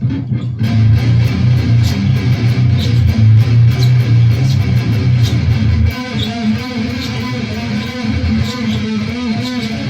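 Electric guitar tuned down to drop A playing a palm-muted riff on the low strings, heavy and low for about six seconds, then moving to lighter, higher notes.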